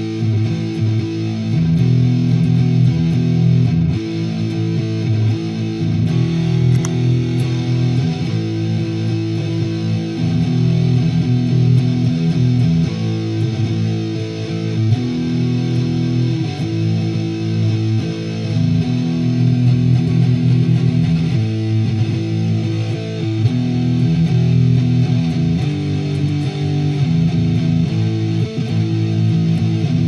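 Electric guitar strumming sustained chords through a Wampler Tumnus Deluxe overdrive pedal, the chords changing every couple of seconds. The pedal is bypassed at first and switched on partway through, adding its overdrive.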